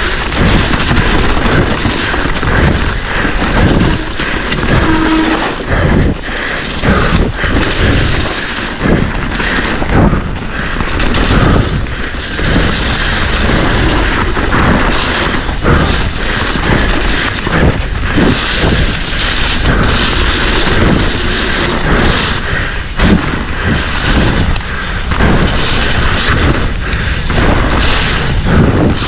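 Wind buffeting an action camera's microphone while descending a rough, wet mountain-bike trail at speed, with frequent knocks and clatter from the bike and tyres over roots and rocks.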